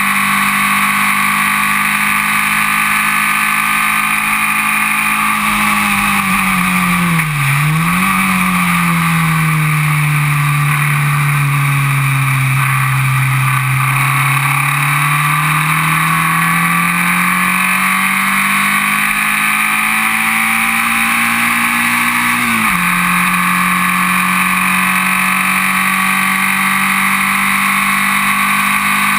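Formula Vee race car's air-cooled Volkswagen 1200 cc flat-four engine at racing load, heard from on board. It runs steady at high revs, then the revs fall into a corner with a quick dip and jump about seven seconds in. They climb slowly out of the corner and drop sharply at a gear change about three quarters of the way through, then hold steady.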